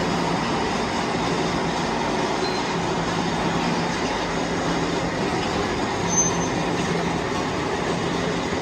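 Steady noise of running metalworking machinery, with a faint low hum that comes and goes.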